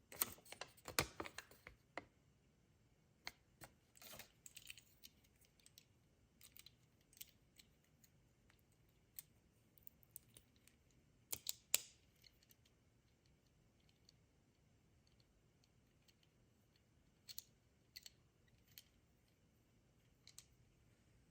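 Faint, scattered clicks and taps of small plastic toy parts being handled, with a busy cluster in the first two seconds and another about eleven seconds in.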